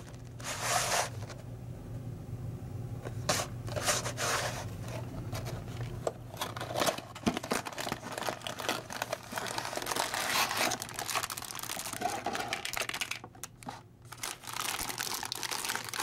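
Cardboard box of a LEGO Technic set being torn open and handled, then the plastic parts bags inside crinkling as they are pulled out: an irregular run of tearing, scraping and crinkling.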